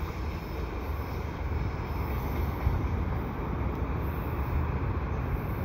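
Steady low rumble of a freight train's last cars rolling away along the track.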